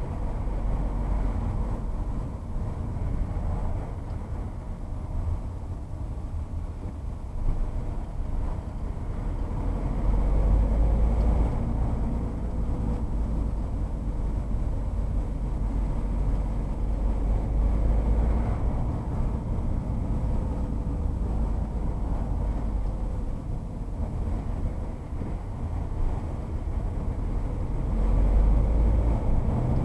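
Steady road noise inside a moving car's cabin: engine and tyre rumble at motorway speed, swelling louder a couple of times.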